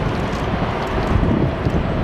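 Boeing 747-8 BBJ on final approach, its four GEnx engines giving a steady jet rumble with a faint steady whine. Wind buffets the microphone over it.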